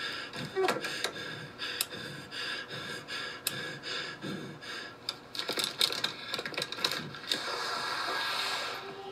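Irregular sharp clicks and ticks, scattered and bunched most thickly around the middle, over a faint steady hum.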